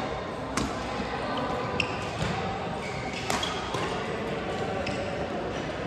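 Badminton rally: sharp cracks of rackets striking the shuttlecock, about one a second, with a few short squeaks between the hits.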